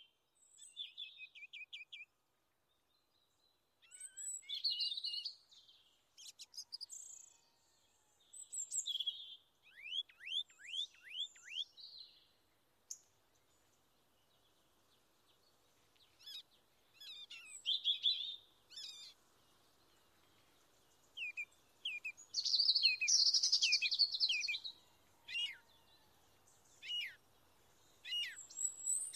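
Songbirds singing in separate phrases of high chirps, trills and quick down-slurred whistles, with short silent gaps between phrases; the fullest burst of song comes about three quarters of the way through.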